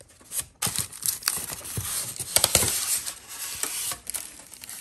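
Cardboard shipping box and its foam and plastic packing being handled and pulled open: continuous rustling and crinkling with scattered clicks and knocks.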